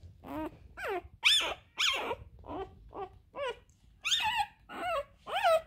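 Week-old English Springer Spaniel puppy crying: a quick series of about a dozen short, high-pitched squealing whines, roughly two a second, each rising and then falling in pitch.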